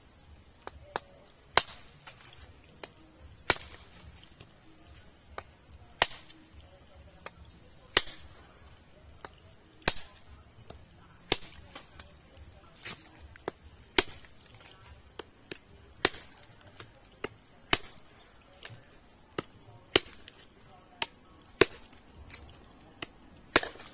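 Machete blade chopping into the hard woody shell of a Brazil nut pod: about a dozen sharp, hard blows, one every couple of seconds. The thick shell holds against the blows.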